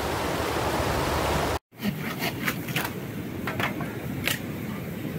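Rushing mountain river water, a dense steady hiss. It cuts off about a second and a half in and gives way to a quieter hiss with scattered sharp crackles and pops, like a wood campfire burning.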